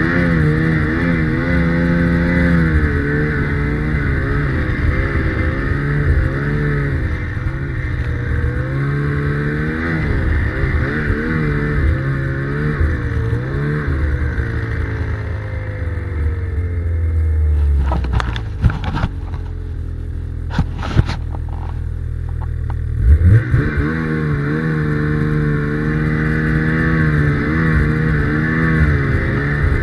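Ski-Doo Summit 850 snowmobile's two-stroke twin engine under way, revving up and down with the throttle. About two-thirds through it eases off to a lower, steadier note with a few sharp knocks, then revs back up.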